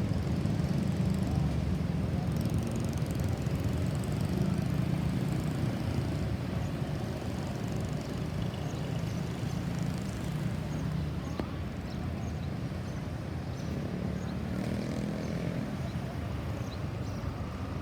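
Street traffic noise: a steady low rumble of vehicle engines, a little louder in the first several seconds, with no siren sounding.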